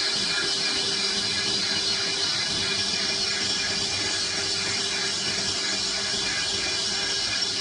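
Large lathe boring the inside of a 1.4301 (AISI 304) stainless steel pipe with a long boring bar: a steady machine hum under an even, hissing cutting noise.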